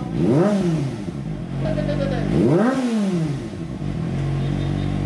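Kawasaki ZX-25R's inline-four engine idling through an aftermarket exhaust and blipped twice, the revs shooting up and dropping back, once right at the start and again near three seconds, before settling into a steady idle: an exhaust sound check.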